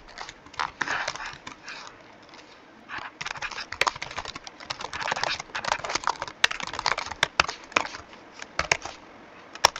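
Computer keyboard typing in quick runs of keystrokes, with a short pause about two seconds in.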